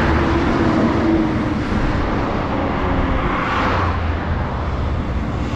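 Motorcycle engine running steadily under way, mixed with wind and road noise.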